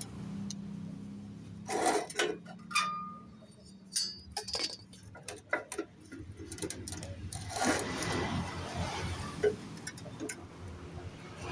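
Light metal clinks and taps, one ringing briefly, as metal pieces are handled and knocked together, over a steady low hum.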